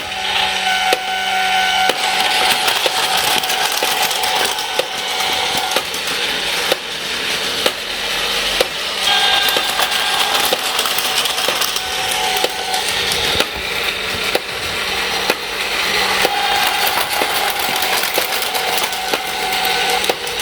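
A battery-powered Plarail toy train running on plastic track, with a continuous clatter and a sharp click about once a second. Electronic sound effects from the level-crossing set come and go over it.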